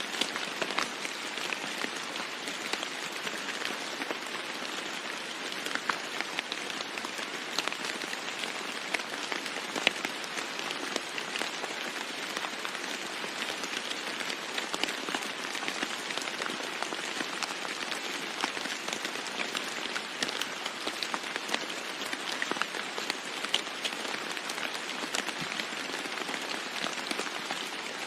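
Steady heavy rain falling on a roof, an even hiss dotted with many sharp individual drop taps.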